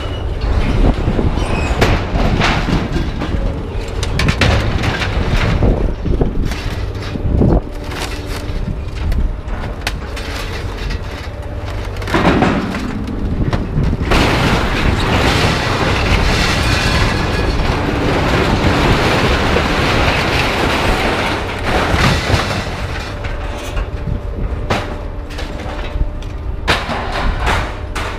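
Scrap metal being unloaded: repeated clanks and bangs of metal over a steady engine hum, with a louder stretch of rushing, rattling noise in the middle.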